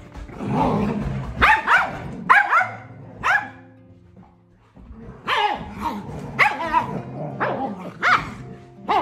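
A dog barking repeatedly during rough play, in two runs of short, sharp barks with a pause of about two seconds between them.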